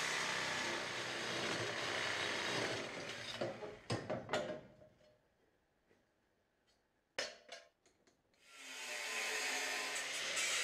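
Power tool cutting steel, running steadily for about three seconds. It stops, and a few sharp metal knocks follow. After a silent break come more knocks, and the tool starts grinding again near the end.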